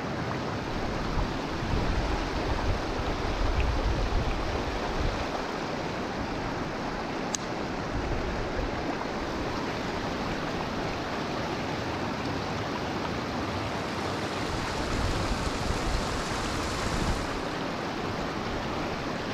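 Water running steadily through a small dam spillway, a constant even rush with no let-up.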